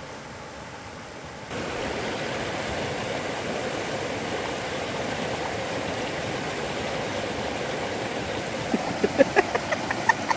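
Fast-flowing river rushing steadily, stepping up suddenly in loudness about a second and a half in. Near the end comes a quick run of short, sharp squeaks and clicks as a press-type water purifier bottle is pushed down.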